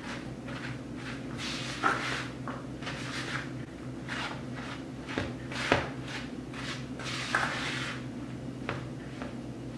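A spatula scraping and knocking against a mixing bowl as thick cookie dough is stirred by hand, in irregular strokes with three louder knocks.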